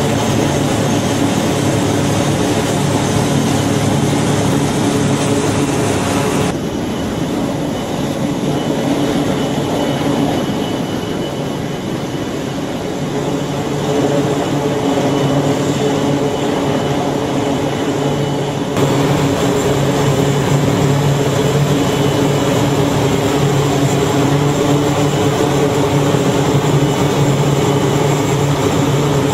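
Aircraft engines running loud and steady, a constant hum with a hiss above it, changing abruptly twice as the footage cuts. In the last stretch a C-2A Greyhound's twin turboprops are turning.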